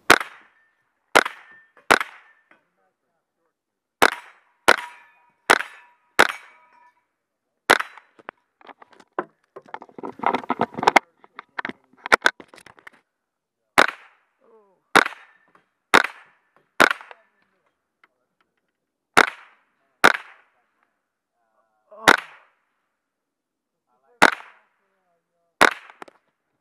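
.22 rimfire rifle fired over and over, about eighteen sharp cracks at an uneven pace of roughly one every second or two, some followed by a short ring from hit steel targets. A stretch of rustling, clattering noise comes about ten seconds in.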